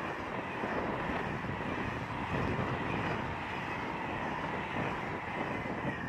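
SNCF Intercités passenger coaches rolling past at speed: a steady rumble of wheels on rail with a faint high whine that dips slightly in pitch near the end, as the last coach goes by.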